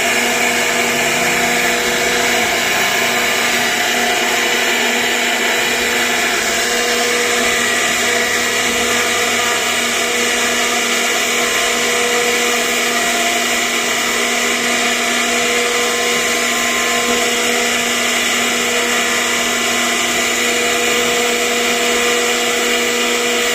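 CNC router spindle running steadily while its bit carves wood: a continuous machine whine made of several steady tones, some of which come and go.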